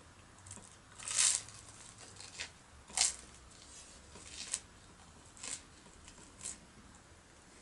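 A person eating toast: a handful of short crunching and tearing noises spaced about a second apart, the first one the longest.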